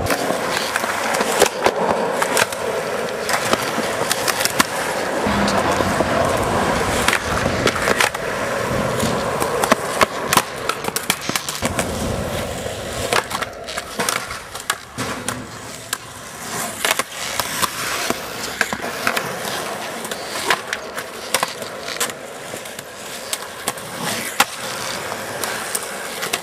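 Skateboard wheels rolling over rough concrete, broken by repeated sharp clacks and knocks of the board popping, hitting the ledge and landing as tricks are tried.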